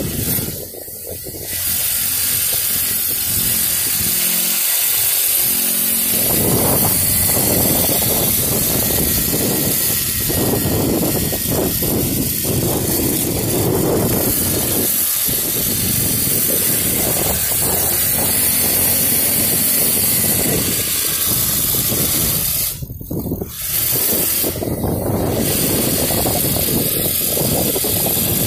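Small engine of a child's mini dirt bike buzzing as it rides, dropping off briefly twice.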